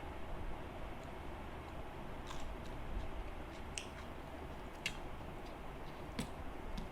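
A person chewing food, with a few short sharp mouth clicks spread through, over a steady low background hum.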